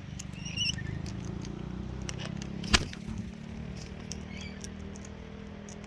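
Cockatoos close to the microphone nibbling and pecking, making scattered small clicks and one sharp click nearly three seconds in, with a brief high chirp near the start, over a steady low hum.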